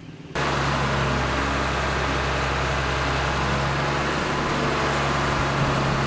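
Truck-mounted crane's engine running steadily while the crane lifts a section of scrapped boat, starting suddenly just after the beginning.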